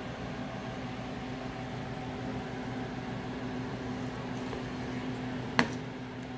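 Steady machine hum with a low, even drone, like room equipment running, and one sharp tap near the end.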